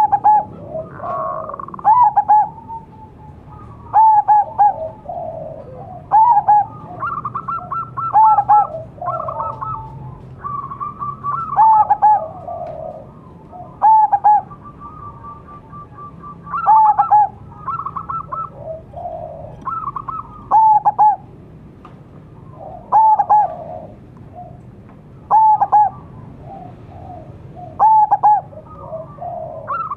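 Zebra dove (perkutut) cooing over and over: a loud, clear coo phrase every two to three seconds, with softer rolling trills in between.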